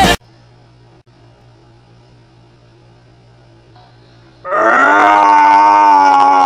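Pop music cuts off abruptly, leaving a low steady hum. About four and a half seconds in, a girl lets out a loud, long, drawn-out vocal cry, its pitch sinking slowly.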